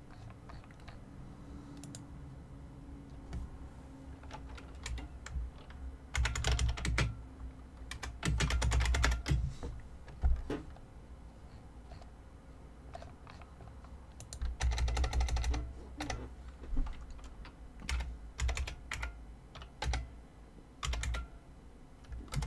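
Typing on a computer keyboard: three quick bursts of keystrokes, with scattered single key clicks in between.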